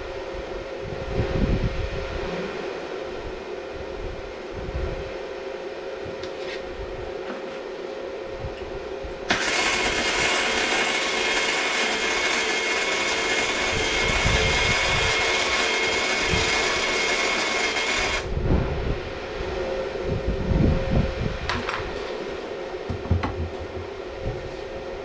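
Gasless flux-core wire welding with a STAHLWERK MIG 135 M IGBT welder: one continuous weld of about nine seconds, a steady hiss with a faint high whine in it. It starts suddenly about nine seconds in and cuts off just as suddenly.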